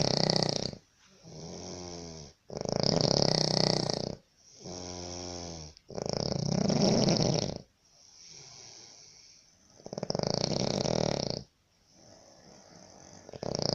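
A man snoring heavily in his sleep: a loud, harsh snore roughly every three to four seconds, each followed by a quieter, pitched exhale.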